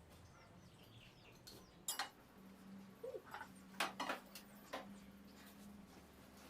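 Pieces of a non-stick cookware set knocking and clinking as they are handled, with a few sharp knocks about two seconds in and again around four seconds in.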